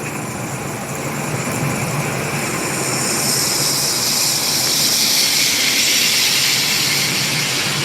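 Rushing noise of a vehicle going past, swelling about halfway through and easing off near the end, over a low steady hum.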